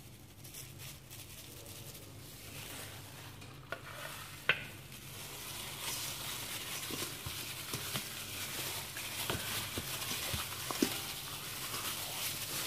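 A hand mixing raw meat with dry ground spices in a stainless steel bowl: a crackly rubbing and squishing that grows louder about six seconds in. A few light knocks against the bowl come through, with one sharper knock about four seconds in.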